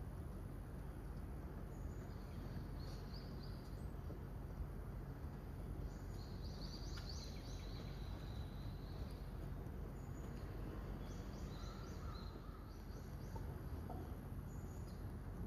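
Short, high, thin bird calls in several scattered bursts over a steady low background hum of outdoor noise.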